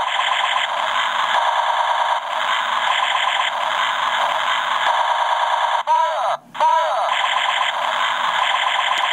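Battery-powered electronic sound effect from a knockoff Gobots Convertible Laser Gun toy: a continuous, rapidly pulsing laser-fire rattle. It breaks off briefly about six and a half seconds in and restarts with a sweeping zap.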